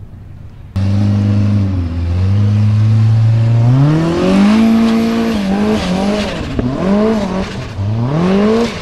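Formula Offroad unlimited-class buggy's engine under hard throttle on a steep dirt hill climb. It cuts in loud about a second in, holds steady, climbs in pitch about four seconds in, then revs up and down several times near the end.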